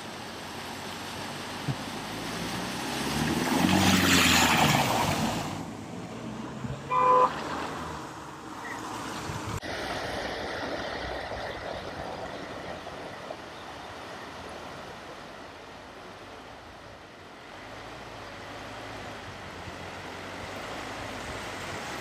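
Cars wading through deep floodwater on a road: their engines and the rush of pushed water swell as one passes close about four seconds in, then ease off. A car horn gives one short toot about seven seconds in, and the steady wash of water from more cars driving through follows.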